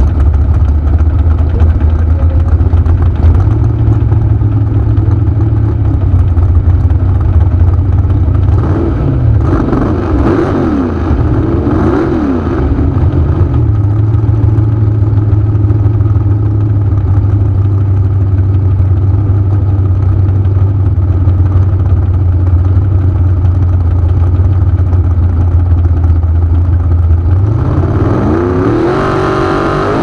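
Dragster engine idling loudly on the start line, with a few throttle blips that make the revs rise and fall partway through. Near the end the revs climb steeply as the car goes into its burnout.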